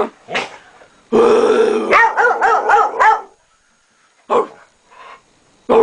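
A dog growling and barking in loud outbursts: a long snarling stretch that breaks into barks, then two short barks, and another outburst starting near the end.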